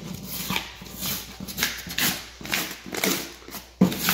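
Painted paper face of drywall tearing as it is peeled off inside a knife-scored circle: a series of short ripping sounds.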